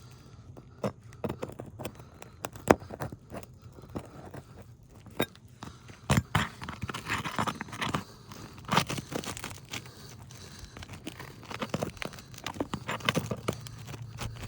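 Small pry bar working under stiff asphalt roof shingles to free the nails: scattered sharp clicks and knocks with crunching and scraping of the shingle.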